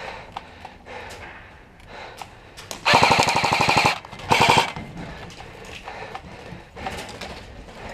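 Airsoft AK replica firing on full auto: a rapid burst of about a second, then a short second burst half a second later, with scattered single pops of other airsoft fire around them.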